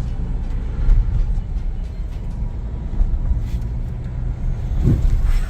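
Vehicle driving on a rough off-road track: a steady low rumble of engine and tyres, with a few knocks and a short rising sound near the end.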